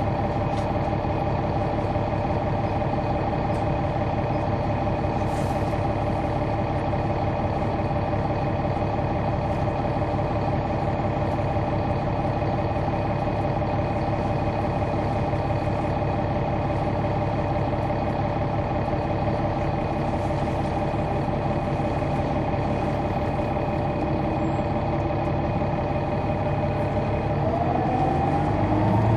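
Caterpillar C-9 diesel engine of a Neoplan AN459 articulated bus running steadily at idle, heard on board, with a short hiss of air about five seconds in. Near the end the engine revs up, its pitch rising and getting louder as the bus pulls away.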